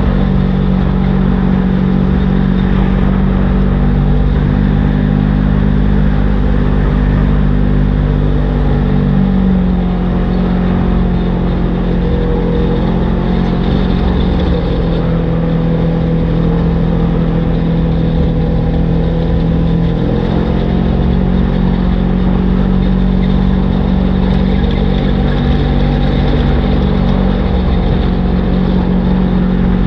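Polaris RZR XP1000 side-by-side engine running steadily while cruising on a gravel road, its low drone shifting slightly in pitch every few seconds, with road and wind noise.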